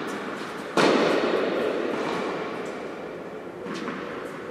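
A loud thud about a second in, ringing on at length in the large echoing tennis hall. Near the end come a couple of softer knocks as a tennis ball is bounced on the indoor court before a serve.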